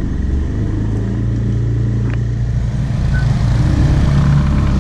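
Motorbike engine running at low speed over wind and road noise, its note rising and getting louder about three and a half seconds in as the bike speeds up.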